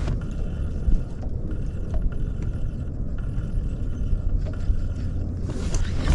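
Boat's electric trolling motor running in short stretches: a thin steady whine that starts and stops several times over a constant low rumble of the boat on the water.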